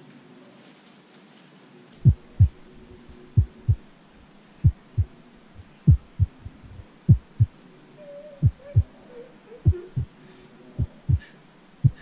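Heartbeat sound effect: slow deep double thumps, lub-dub, about one pair every 1.2 seconds, starting about two seconds in.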